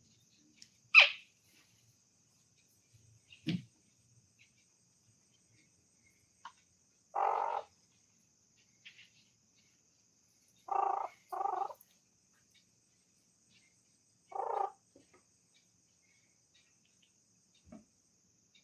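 A pet parrot calling: one sharp, loud squawk about a second in, then buzzy half-second trills, one near seven seconds, a close pair near eleven seconds and one near fifteen seconds, which is its imitation of a telephone ringing.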